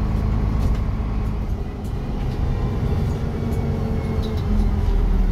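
Diesel bus engine running with a steady low rumble and hum, dipping slightly about two seconds in.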